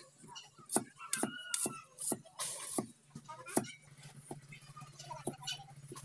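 Large knife chopping on a wooden chopping board, slicing through a red onion and then a tomato. The blade knocks on the board in irregular strokes. A steady low hum sits behind it from about halfway.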